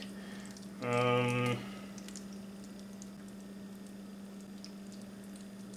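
Faint wet squishing and small clicks as a raw octopus head is worked and turned inside out by hand, over a steady low hum. About a second in, a man gives a short held "hmm".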